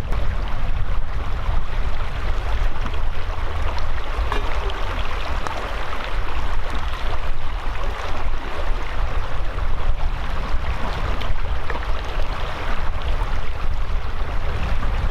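Steady rushing of a stream flowing over a rocky riverbed, with a low rumble of wind on the microphone.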